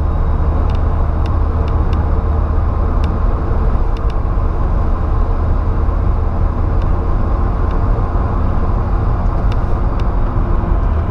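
Steady cabin noise from a Volkswagen Saveiro pickup with a 1.6 AP four-cylinder engine, cruising on a highway: a constant low rumble of engine and tyres, with a few faint clicks.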